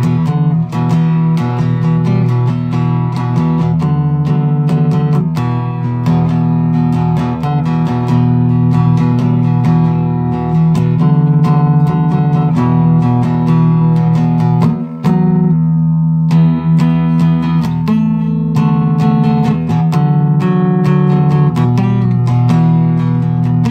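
Chords strummed and picked on a flat wooden-bodied guitar tuned E–B–E, played steadily with stretched fingerings, with a brief drop in playing about 15 seconds in.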